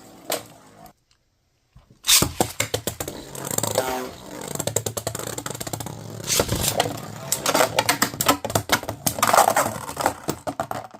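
3D-printed beyblades spinning and clashing in a stadium: a dense rattle of rapid clicks and scrapes that starts about two seconds in.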